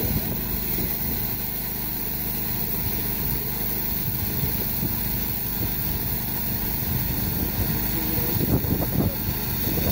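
Stand-mounted, water-cooled diamond core drill boring a core sample out of new asphalt pavement, running steadily together with the portable generator that powers it. Briefly louder about eight and a half seconds in.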